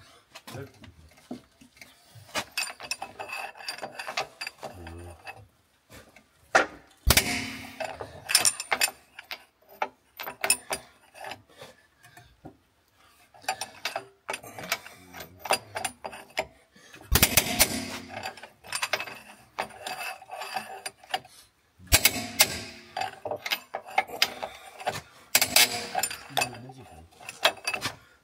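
Hand-tool work on a car's rear leaf-spring fixings: bursts of rapid metallic clicking, ratchet-like, with knocks and clanks, loudest in a few spells about 7, 17, 22 and 25 seconds in.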